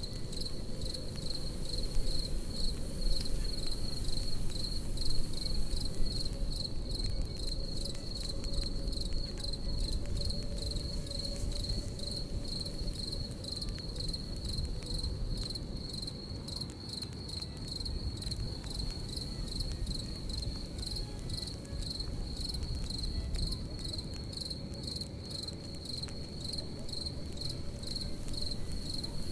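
Crickets chirping in a steady, rapid pulse over the snapping and crackling of a campfire and a low rumble.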